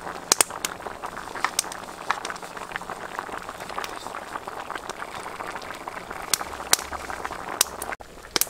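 Soup of duck eggs and vegetables in coconut water boiling hard in a wok: a steady bubbling with scattered sharp pops throughout.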